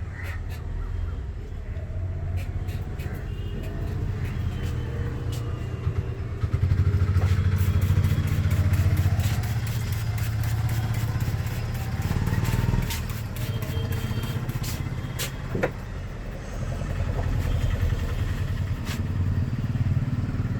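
Motor vehicle engine running close by, a steady low rumble that swells for a few seconds about seven seconds in, with many short sharp taps over it.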